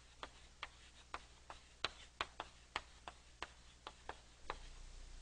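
Chalk writing on a blackboard: a run of sharp, irregular taps, about three a second, as the chalk strikes and lifts between strokes of the letters.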